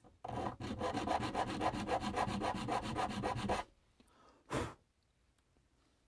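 Large triangle file cutting a notch into soft brass in the knife's file-work pattern: a continuous rasping run of about three seconds, then one more short stroke.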